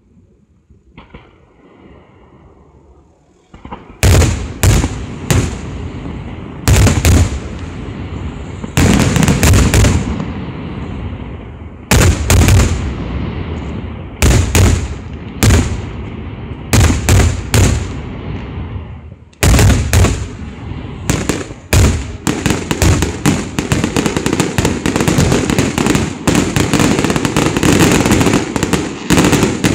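Aerial fireworks shells bursting in loud, sharp bangs. After a few quiet seconds the bangs come in clusters every two or three seconds, then from about twenty seconds in they run together into a rapid, almost continuous barrage.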